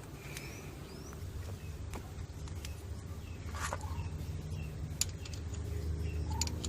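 Birds chirping in short rising notes over a steady low hum that grows a little stronger after about a second, with three sharp clicks.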